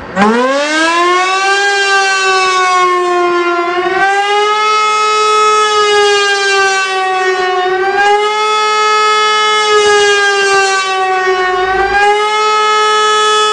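A loud siren winds up from a low pitch in about the first second and a half, then holds a steady wail with slight, slow wavers in pitch.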